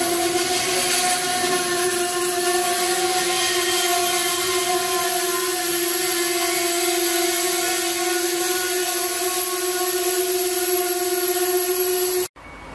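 Bilevel passenger train cars passing close by: steady wheel-on-rail noise with a held tone running through it. It cuts off suddenly near the end.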